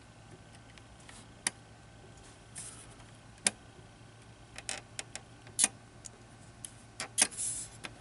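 Sharp clicks and taps from the front-panel eject button of a Shuttle SZ87R6 small-form-factor PC being pressed and the optical drive's tray catching on the case's front door, four loudest about one and a half, three and a half, five and a half and seven seconds in. The tray doesn't open cleanly: the drive sits a little too low behind the bezel.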